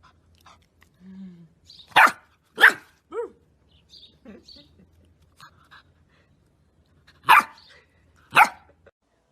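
A dog barking: four loud barks, a pair about two seconds in and another pair near the end, with a few fainter sounds between them.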